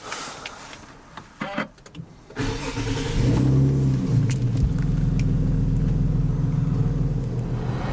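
Nissan 370Z's 3.7-litre V6 starting about two seconds in, after a couple of clicks: a brief rev flare that rises and falls, then it settles into a steady idle.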